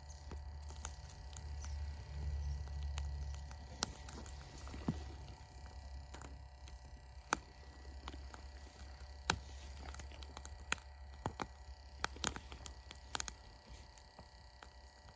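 Small wood fire in a Sierra stove crackling, with irregular sharp pops and ticks over a low steady hum.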